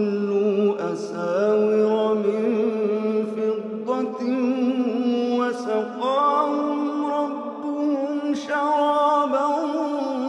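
A man reciting the Quran in a slow, melodic chant (tajwid), one solo voice drawing out long held notes that waver and glide between pitches.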